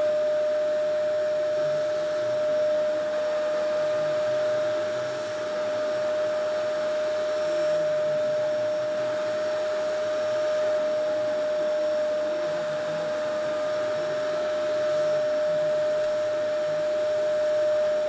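Vacuum cleaner running steadily with a constant whine, its nozzle being passed over a Labrador's coat.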